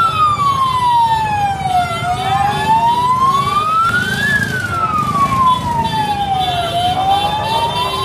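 A siren wailing slowly: its pitch falls, rises, then falls and starts to rise again, in long sweeps of about two and a half seconds each. Under it runs the steady din of a street crowd.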